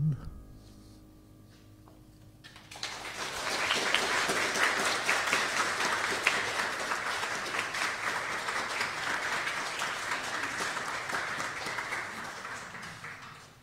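A congregation applauding. The clapping breaks out about three seconds in, after the last sung note and piano fall away into a short hush, and tapers off near the end.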